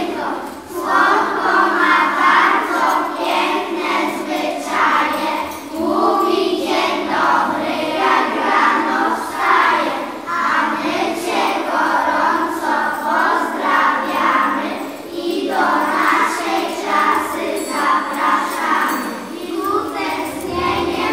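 A group of young children singing a song together in unison, with small hand percussion: triangles, tambourines jingling and wooden rhythm sticks tapping along.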